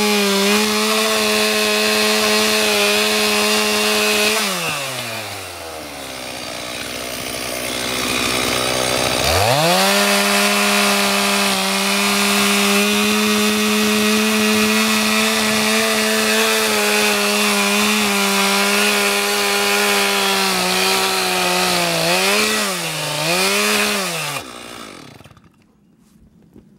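Gas chainsaw cutting through a firewood log at full throttle. About four seconds in it drops to idle, then revs back up and cuts again. Near the end it revs down and up twice and then stops.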